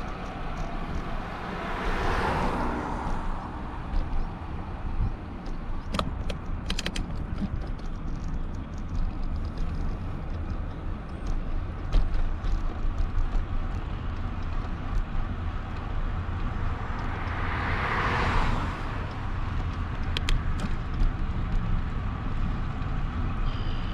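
Steady low rumble of wind and road noise from a moving bicycle, with two cars passing, one about two seconds in and another near eighteen seconds, each swelling and fading away. A few short clicks sound around six to seven seconds in.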